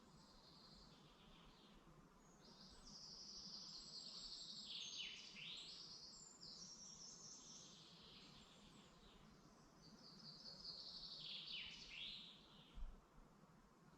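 Faint songbirds singing in a forest, several overlapping high, quick phrases, busiest about three to six seconds in and again around ten to twelve seconds. A low steady hum lies underneath, with one brief low bump near the end.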